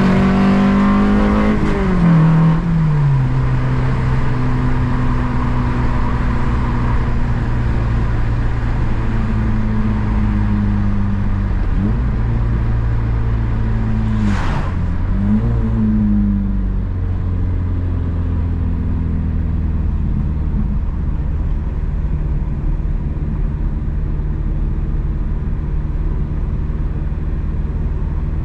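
Honda Civic Si engine under way: the revs fall away about two seconds in, then it runs at a steady cruise, with two brief dips and recoveries in engine speed around the middle and a short hiss partway through.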